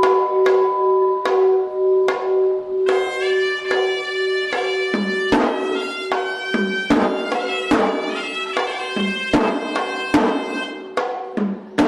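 Sri Lankan hevisi ritual drumming: drums struck in an irregular pattern, with a reed horn (horanewa) entering about three seconds in and playing a wavering melody. Under it a temple bell's long ringing tone slowly fades.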